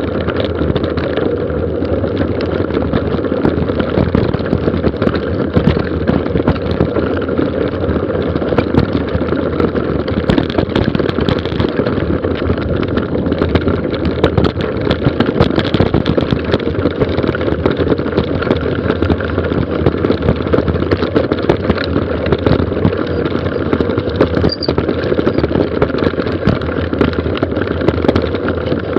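Mountain bike descending a gravel forest road at speed: a continuous rush of tyres on loose stones with constant rattling from the bike, and wind buffeting the microphone.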